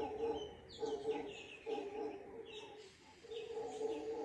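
Mantled howler monkeys roaring, a run of low, hoarse bursts about once a second, with birds chirping in quick falling notes over them.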